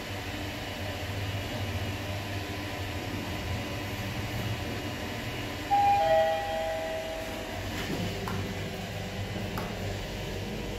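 Mitsubishi GPS-III traction elevator car travelling upward with a steady low hum. About six seconds in, a two-note arrival chime sounds, a higher tone then a lower one, as the car reaches its floor. A few faint clicks follow.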